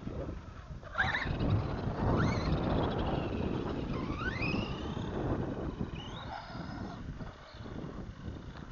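Arrma Granite 4x4 Mega RC truck's brushless motor whining as it drives over concrete, the whine rising in pitch as it speeds up, twice in the middle of the stretch, over tyre rumble and wind on the microphone.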